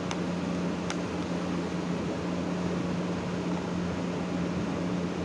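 Steady low machine hum under an even hiss, with two faint clicks about a second apart near the start.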